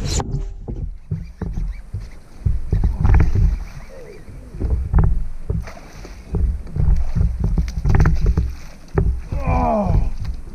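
Water splashing and churning against a fishing kayak's hull, with repeated low thuds and a few sharp splashes, as a hooked bass thrashes at the surface beside the boat. A man gives a short exclamation near the end.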